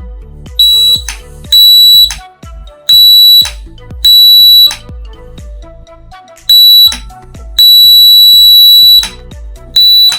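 Homemade doorbell's electric buzzer, run off a 9-volt battery, sounding a loud, high, steady beep seven times as the bell switch is pressed and released, each beep lasting from half a second to about a second and a half. Background music plays underneath.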